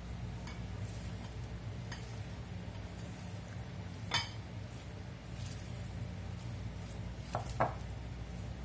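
Chicken being mixed with salt and spices in a bowl: a utensil scraping and clinking against the bowl a few times, with the sharpest clink about four seconds in and two more close together near the end, over a steady low hum.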